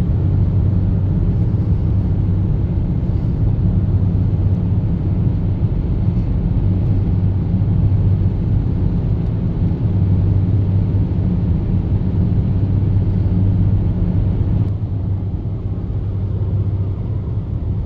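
Steady road noise of a car cruising at highway speed, heard from inside the cabin: a low drone of engine and tyres with a hiss over it, easing slightly near the end.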